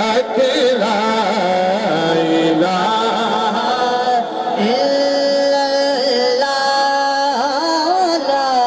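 A man singing a Punjabi devotional kalam (naat), long held notes with ornamented turns and glides.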